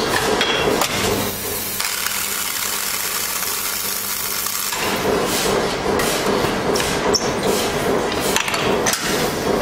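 Band saw blade butt welder flash-welding a blade joint: starting about a second in, a steady hiss from the sparking joint over the welding transformer's hum lasts about three and a half seconds and then cuts off. Sharp clicks and knocks follow as the machine's clamps are worked.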